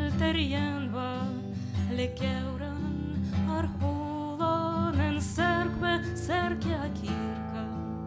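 A woman singing a slow melody with vibrato and ornamented pitch slides, accompanied by an acoustic guitar.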